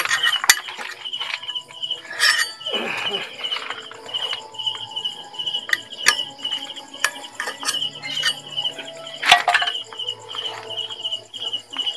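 An insect chirping steadily, a high pulse repeating about two to three times a second. A few sharp clicks and knocks of metal parts being handled on a GY6 scooter's belt-drive transmission, the loudest near the start and about nine seconds in.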